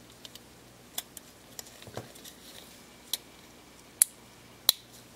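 Small plastic and metal camera parts, the flash board and internal frame of a Panasonic Lumix ZS19, clicking and tapping as they are pressed together and a clip is seated, with two sharp clicks near the end.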